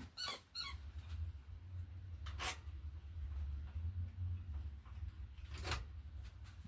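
A few light clicks and two sharper knocks, about three seconds apart, over a low steady hum.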